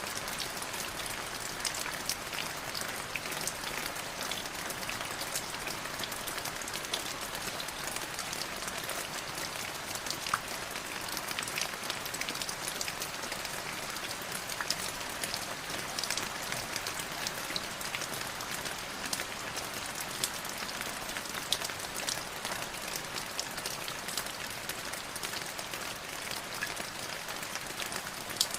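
Light drizzle: a steady hiss of fine rain with many small, separate drop ticks.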